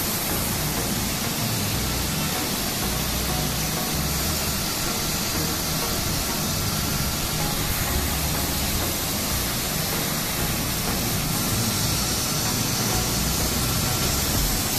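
Senfeng fiber laser cutting head cutting 12 mm steel plate at 1.5 kW: a steady, even hiss of the assist-gas jet and cut, with a low uneven rumble underneath.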